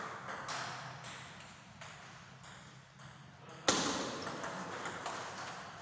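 Table tennis ball in play: a sharp, loud hit a little past halfway opens a rally, followed by quick clicks of the celluloid ball off bats and table.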